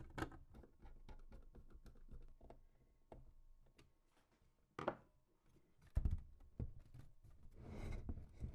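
Light clicks and taps of PC parts being handled during assembly, with a sharper knock about five seconds in, two heavier thumps around six seconds, and a brief rustle near the end.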